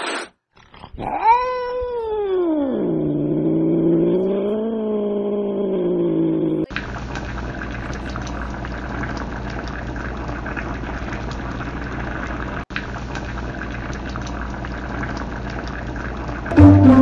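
Ginger domestic cat yowling: one long drawn-out cry, about five seconds, that rises in pitch, sinks and wavers. It cuts off abruptly into a steady hiss with a low hum, and music starts near the end.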